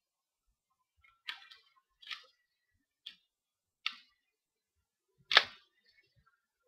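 Five sharp clicks of LEGO plastic parts being handled on a LEGO rubber-band gun, the last about five seconds in the loudest snap.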